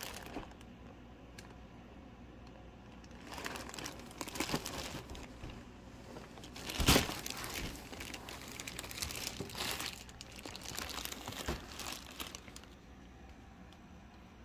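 Clear plastic wrapping crinkling and rustling in irregular bursts as a wrapped golf cart bag is handled and pulled out of a cardboard box, with one louder burst about seven seconds in.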